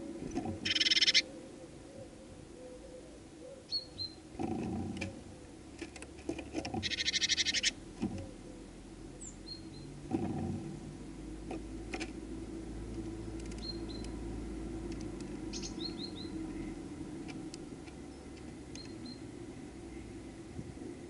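Small garden songbirds calling: brief high chirps scattered through, with two loud, rapid chattering calls, one about a second in and one around seven seconds in. A couple of dull bumps are heard, one around four and a half seconds in and one around ten seconds in.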